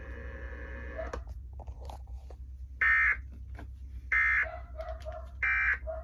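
Three short, buzzy Emergency Alert System data bursts from a TV speaker, a little over a second apart. These are the SAME end-of-message tones that close the alert.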